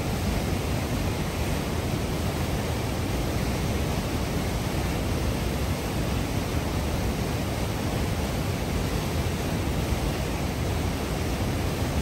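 Merced River whitewater, swollen with spring snowmelt, rushing through a narrow granite chute at the top of Nevada Fall: a loud, steady rush of water.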